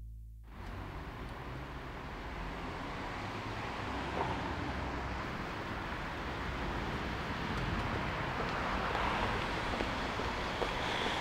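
A held musical note cuts off about half a second in. After it comes a steady, even background noise that swells a little toward the end, with a few faint clicks.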